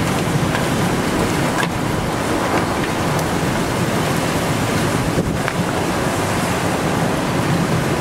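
Severe thunderstorm winds driving heavy rain: a loud, steady roar of wind and rain with no letup.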